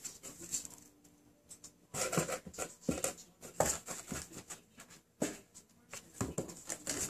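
Kittens and a cat scuffling in and around a cardboard box on a hardwood floor: irregular flurries of scratches, taps and knocks of paws and bodies against cardboard and floorboards, with a louder thump near the end.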